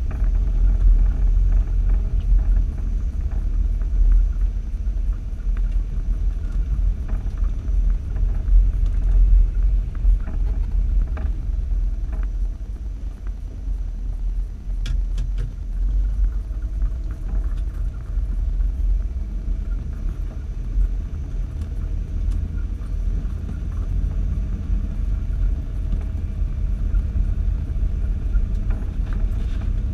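Off-road vehicle driving slowly along a rough, muddy dirt trail. A steady low rumble from the engine and drivetrain is heard muffled through a hood-mounted camera's waterproof housing, with scattered knocks from bumps in the ruts, a few sharper ones about halfway through.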